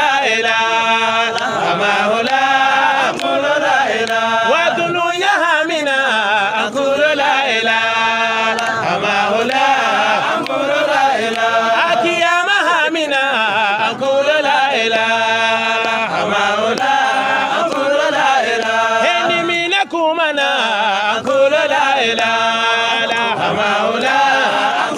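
A man chanting a Sufi devotional song in praise of Cheikh Hamahoullah, holding long notes that bend and waver in pitch, with no breaks.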